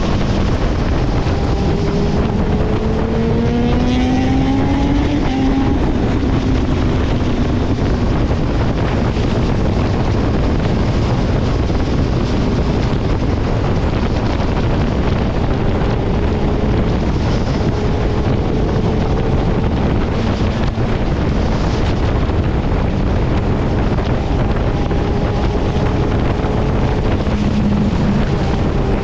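Motorcycle engine under heavy wind noise on the microphone, its pitch climbing steeply about three to five seconds in as it revs or accelerates, then running on more evenly.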